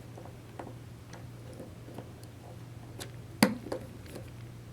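Small metal clicks and ticks from a Popular Mechanics 3/8-drive ratchet head being taken apart by hand, with one sharper click about three and a half seconds in.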